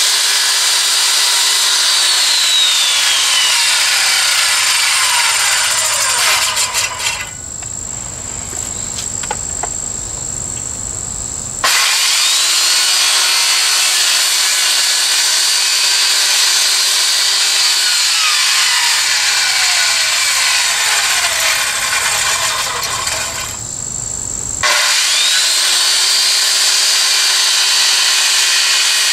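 Circular saw ripping a 2x4 lengthwise: the motor's whine sinks steadily in pitch as the blade works along the board. Twice there are a few quieter seconds, then the saw spins back up to full speed and cuts on.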